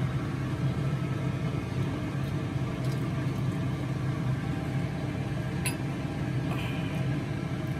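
A steady low mechanical hum, like a kitchen appliance or fan running, with one faint clink a little past two-thirds of the way through.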